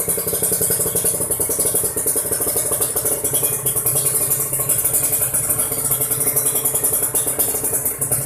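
Kawasaki Ninja 150 RR two-stroke single idling steadily through an aftermarket Akrapovič-style racing exhaust, a fast, even popping with no revving.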